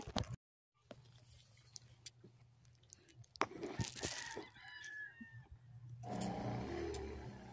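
A rooster crows once, about four seconds in, over a low steady hum and scattered rustles and clicks.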